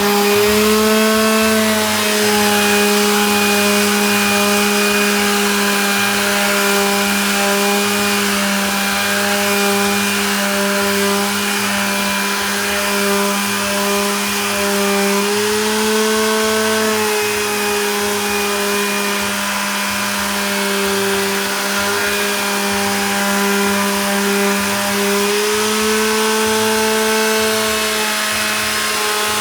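Electric power tool motor running continuously while working wood, its pitch rising briefly three times, as the load on the cut eases.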